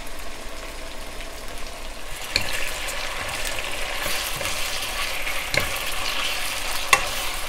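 Thin-sliced beef shallow-frying in canola oil in a nonstick wok, sizzling steadily. The sizzle grows louder about two seconds in as the beef is stirred and turned with wooden spatulas. Three sharp knocks come from the spatulas striking the pan.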